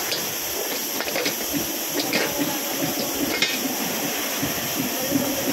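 Steady hissing noise from a factory floor, with a low murmur underneath and a few light clicks and knocks.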